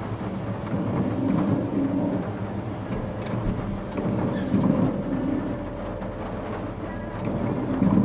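Truck engine running, heard from inside the cab as a steady low rumble with a faint hum; the truck moves off near the end.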